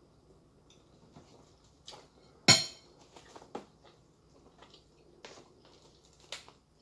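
A metal spoon clatters once, loudly, on a plate, among a few softer clicks and knocks of eating and handling tableware.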